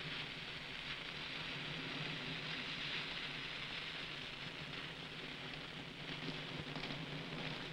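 Freshly lit backfire crackling steadily as it burns through dry brush and twigs, a dense patter of fine crackles over a faint steady low hum.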